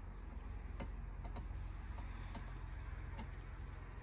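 Scattered faint clicks of a metal knife tapping against the metal can and tin dish as a roast chicken is worked off its can, over a steady low rumble.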